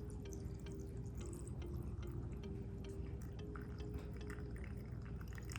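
Water dripping and trickling in small amounts into a microwavable mac and cheese cup as it is topped up to the fill line, many small irregular drips.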